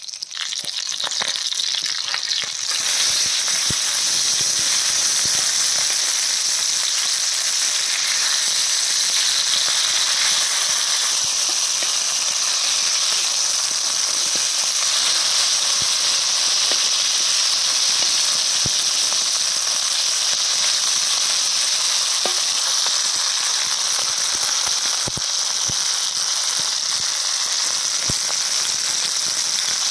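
Hot oil sizzling steadily around spice-marinated whole fish shallow-frying on a flat pan, getting louder about two seconds in, with scattered small pops and crackles.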